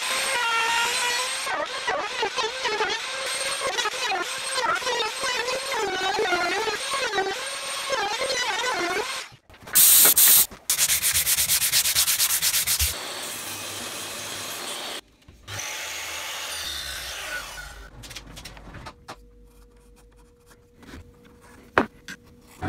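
Wooden table-top edges being sanded: repeated rubbing strokes with a wavering squeak for the first part, then a short, much louder and harsher stretch of sanding about ten seconds in, followed by duller rubbing that fades to quiet near the end.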